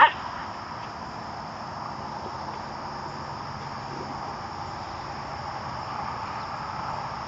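A puppy gives one short, sharp yelp at the very start, then steady insect chirring of crickets runs on underneath.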